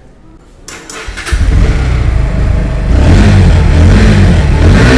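Bajaj Pulsar NS160's single-cylinder engine starting about a second in. It then runs through its underbelly exhaust and is revved several times, each rev rising and falling in pitch.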